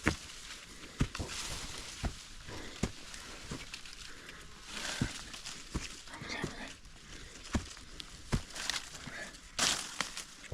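Footsteps of a hiker climbing a steep dirt mountain trail: uneven thuds about once a second, with a hissing rustle between them.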